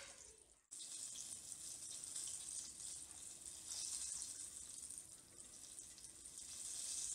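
Flour-and-egg double-dredged trout fillet sizzling steadily in hot oil in a pot: a continuous high hiss that starts after a moment of silence at the very beginning.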